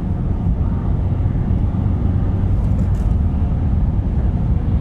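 Peugeot 407's 2.2 HDi twin-turbo four-cylinder diesel pulling hard in fifth gear at full throttle, heard from inside the cabin as a steady deep drone mixed with road noise.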